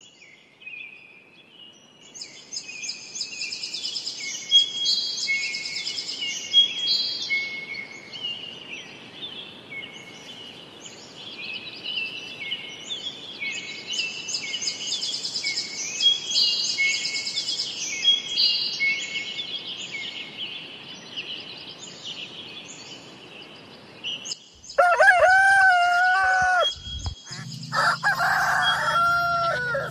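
Small birds chirping and trilling in quick, repeated high phrases for most of the time, then a rooster crows loudly about three-quarters of the way through.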